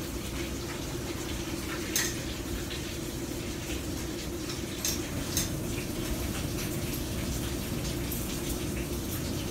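Coin-operated top-loading washing machine filling with water: a steady low rush, with a few sharp clicks about two and five seconds in.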